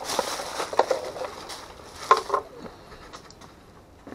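Handling noise from rummaging among parts: plastic packaging rustling for about the first second, then scattered clicks and two sharp knocks a little over two seconds in.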